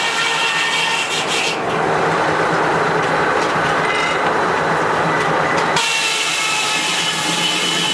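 Sawmill's large circular blade sawing through a log: a dense rasping cut of about four seconds in the middle, between stretches of the blade's higher whine as it runs free.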